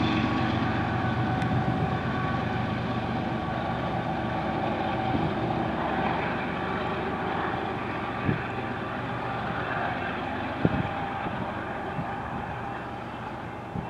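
Diesel locomotive at the end of a train of empty coal cars running away, its engine a steady drone with several held tones, slowly fading. A couple of sharp clacks stand out, about 8 and 11 seconds in.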